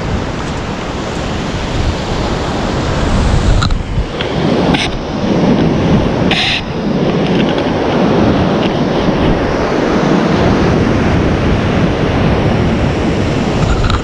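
Ocean surf breaking and washing up a sandy beach in a steady rush, with wind buffeting the microphone. A few brief knocks come through near the middle.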